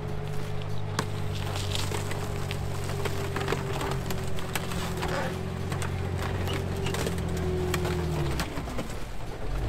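A Centurion tank's Rolls-Royce Meteor V12 engine runs under load as the tank climbs over a car. Many sharp cracks and crunches come from the car's body being crushed. Near the end the engine note drops, then starts to rise again.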